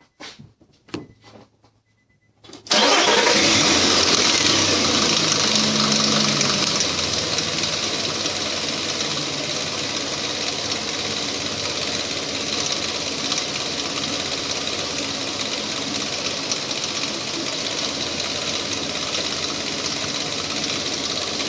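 2005 Nissan Frontier engine starting about three seconds in after a few short sounds, then running at a fast idle that eases down over the next few seconds and settles to a steady idle. This is the restart after a timing chain replacement, with the idle now holding.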